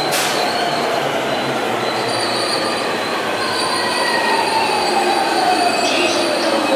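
JR Yamanote Line electric commuter train running along the platform, its motor whine falling in pitch as it slows, over steady wheel and rail noise with some high squeal. There is a sharp click right at the start.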